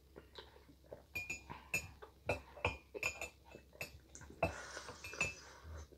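Hot chocolate being sipped and slurped from a plastic ladle held to the lips: a run of short, irregular clicks and smacks, with a longer breathy slurp about four and a half seconds in.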